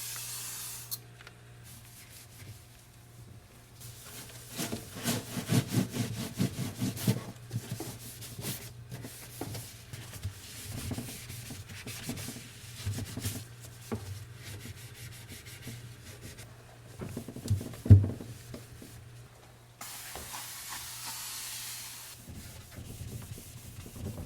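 Cleaning cloth wiping and scrubbing refrigerator surfaces in quick rubbing strokes, with one sharp knock a little after halfway and a spray-bottle hiss of cleaner near the end.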